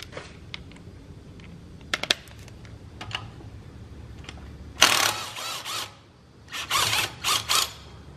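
Cordless power driver running an alternator bolt: one run of about a second starting about five seconds in, then a stuttering string of short bursts near the end. Before that come a few light metallic clicks of the tool and socket being set on the bolt.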